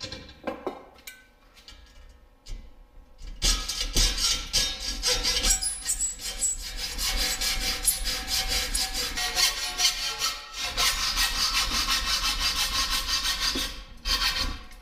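Hacksaw cutting through an aluminum strip clamped in a bench vise. Steady back-and-forth strokes start about three seconds in, pause briefly around ten seconds, and stop near the end. A few scattered knocks come before the sawing starts.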